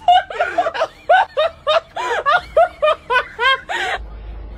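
A person laughing in a rapid run of short high-pitched bursts, about four a second, cut off suddenly near the end.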